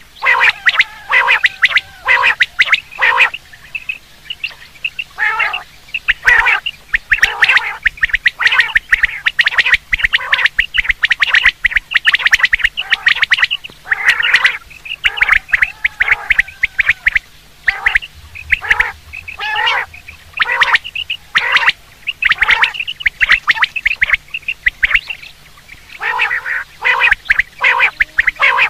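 Common quail calling: short, harsh notes repeated rapidly in runs, with brief pauses about four seconds in and again near the end.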